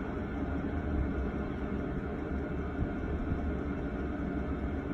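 Chinese diesel heater running on high heat with a steady low rumble as it burns off excess diesel that flooded it.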